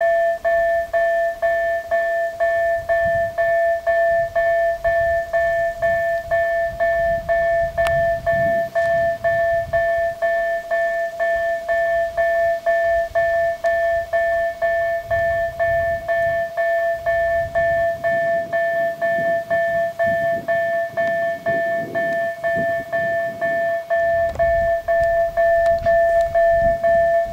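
Level-crossing warning bell ringing, a steady run of identical dings about twice a second, warning that a train is approaching.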